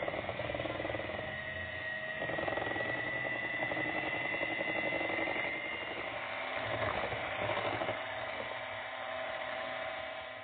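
Electric hand mixer running with its beaters in cake batter: a steady motor whine with churning from the beaters, which stops near the end.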